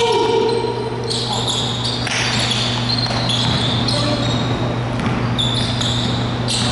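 Basketball being dribbled on a hardwood gym court, with short high sneaker squeaks over a steady low hum in the hall.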